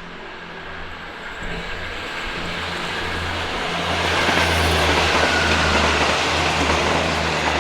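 An old Japanese Tokyu-built diesel commuter railcar set passing close by: a low engine hum and the rush of wheels on rail, growing louder to a peak about five seconds in and beginning to fade near the end.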